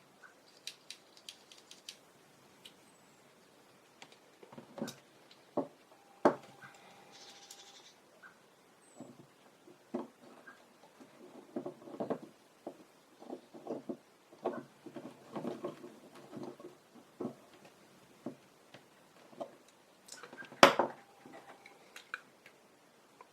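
Small clicks, taps and light scrapes of a vintage camera lens's metal and glass parts being handled and fitted back together while its rear elements are reinstalled, with one louder knock near the end.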